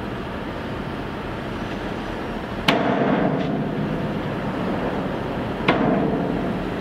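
Volvo FMX tipper truck dumping fill from its raised body while the truck edges forward, over steady diesel engine noise. Two sharp bangs come about three seconds apart, each followed by about a second of rumbling as the load slides out.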